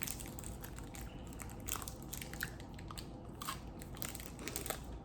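A person biting and chewing a crunchy honeycomb chocolate bar, a Cadbury Crunchie, with scattered small crunches and crackles.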